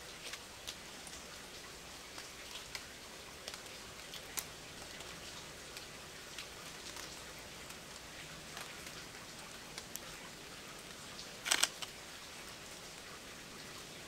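Steady light rain with scattered drops ticking close by. Near the end a Sony A7 III camera's shutter fires in a quick burst of a few clicks.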